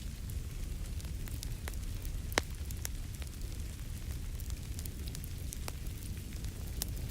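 Wood fire crackling in a fireplace: a steady low rumble under scattered small pops and crackles, with one sharp, louder pop about two and a half seconds in.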